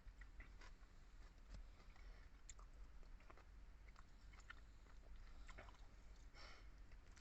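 Faint close-up chewing of pork and vegetables from sinigang, with small wet mouth clicks and smacks scattered irregularly.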